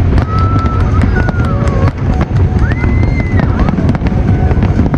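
Fireworks display going off: a dense run of crackles and bangs over a continuous low rumble, with a few brief whistle-like tones.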